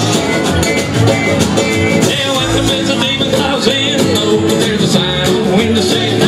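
Live country-bluegrass string band playing: banjo and acoustic guitar strumming with a washboard, and a voice singing over them.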